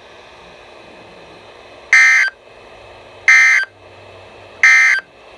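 NOAA Weather Radio SAME end-of-message signal heard through a weather radio's speaker: three short, harsh digital data bursts, each about a third of a second long and about a second apart. They mark the end of the broadcast warning. Steady radio hiss fills the gaps.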